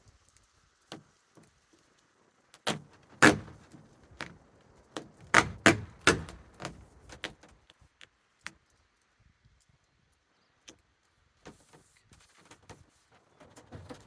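Irregular clicks and knocks from handling and pressing on the plastic roof box shell while sealing its cracks with tape. They come thickest about 3 s in and again around 5–6 s in, then thin out to a few isolated taps and a brief hiss.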